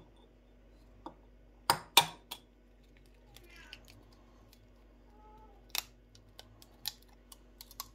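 A brown egg tapped against the rim of a ceramic egg separator to crack its shell: two sharp taps about two seconds in and a third just after, then a few lighter clicks and cracks as the shell gives.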